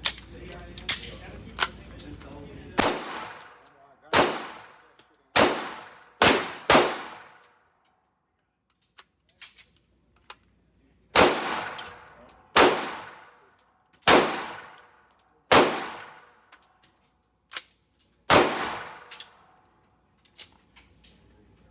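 A series of gunshots at a shooting range: about ten loud single shots, each trailing off in a long ringing echo, with fainter cracks of other shots between them. There is a pause of a few seconds near the middle.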